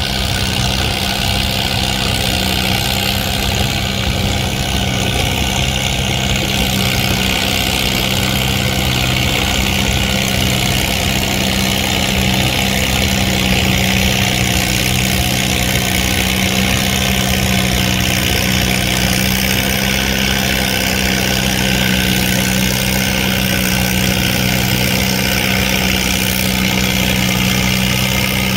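Antique farm tractor engine running at a steady, unchanging speed.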